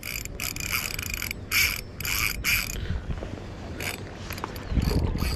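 Spinning reel's drag clicking off line in several short rasping bursts as a hooked Chinook salmon pulls against it. The bursts thin out to scattered clicks after about three seconds, with a dull low rumble near the end.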